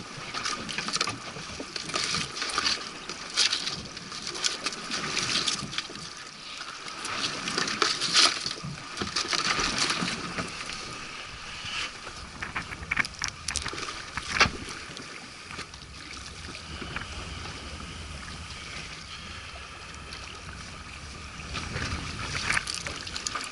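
Water sloshing and splashing with a rushing noise, broken by frequent short clicks and knocks.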